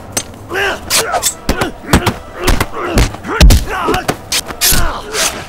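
Hand-to-hand fight sound effects: a quick series of sharp punch and kick impacts, with the fighters grunting and shouting between the blows.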